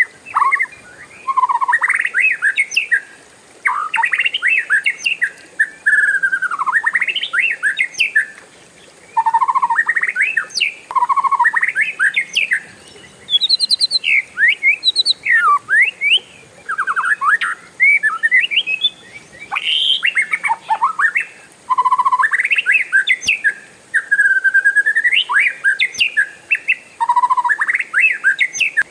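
Oriental magpie-robin (kacer) singing: a long, varied song of quick whistled sweeps and trills, delivered in phrases of one to three seconds with brief pauses between them.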